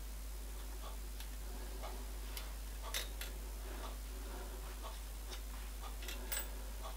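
Faint, irregular metallic clicks and taps as a hex key works a clamp screw on a milling-machine vise and the tools are handled, the sharpest about three seconds in and again just after six seconds, over a faint steady workshop hum.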